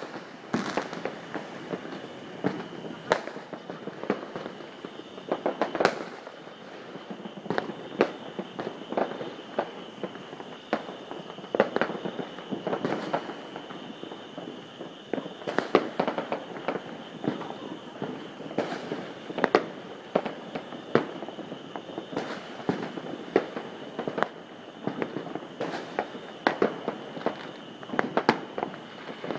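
Fireworks and firecrackers going off in many places at a distance: irregular sharp bangs and pops, several each second, over a constant crackle of far-off explosions.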